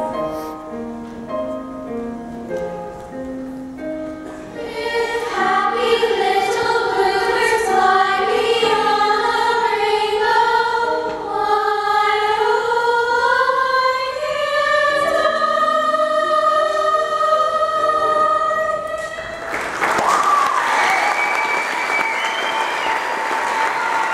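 Children's choir singing over piano: a few seconds of short piano notes, then many voices holding long, slowly rising notes. The singing stops about 19 seconds in and audience applause breaks out, with a few shouts.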